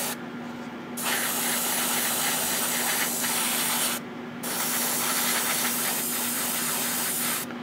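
Gaahleri GHAD-39 airbrush spraying paint with a steady hiss of air. The hiss cuts out three times as the trigger is let off: for about a second at the start, briefly about four seconds in, and again near the end. A steady low hum runs underneath.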